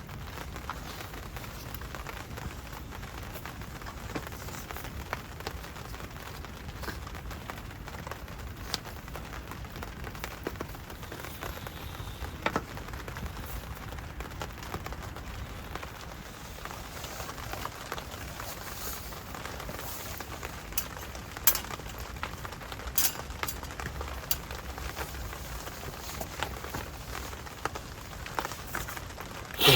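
Steady rain on a military pup tent, with scattered louder drops ticking on the fabric and one sharp knock at the very end.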